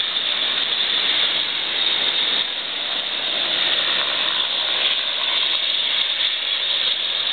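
Steady rushing noise of breaking surf.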